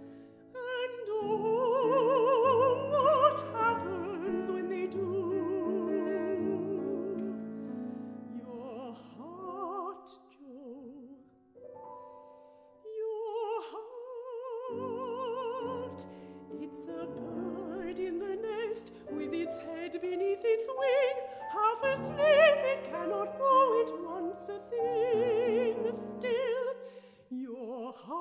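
A female classical singer sings an operatic passage with wide vibrato, accompanied by grand piano. Voice and piano fade to a brief near-silent pause a little before the middle, then pick up again and build to a louder, higher passage.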